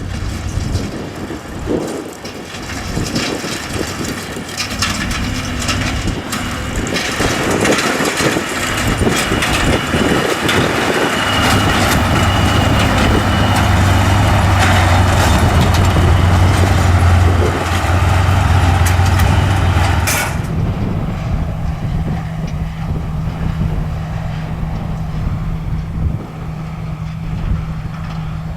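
Heavy farm machinery running, with engine drone under a loud, noisy mechanical clatter that swells for the first two-thirds. About 20 seconds in the clatter cuts off abruptly, leaving a steadier, lower engine hum.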